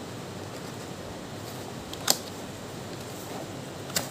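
A cardboard product box being handled on a desk, with one sharp tap or click about halfway through and a softer one near the end, over a steady background hiss.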